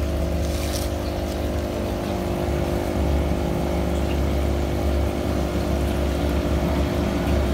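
Aquarium air pump humming with a steady low buzz that does not change.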